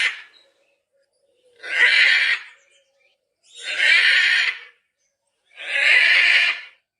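Macaw squawking: harsh, raucous calls about a second long, three in a row roughly two seconds apart, after the end of an earlier one.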